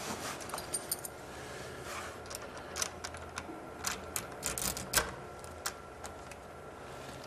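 A thin metal tool picking the lock of a brass doorknob: irregular small metallic clicks and scrapes, coming thicker in the middle, with the loudest click about five seconds in.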